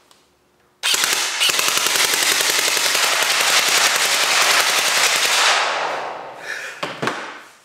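Wells PDW ARP electric gel blaster firing a long full-auto burst, its motor-driven gearbox cycling rapidly. The burst starts about a second in, runs about five seconds and trails off, with a couple of short shots near the end.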